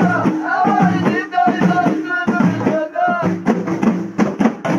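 Group of men singing together over large frame drums (bendir) beaten by hand in a steady rhythm. In the second half the singing drops back and the drum strokes come quickly, about five a second.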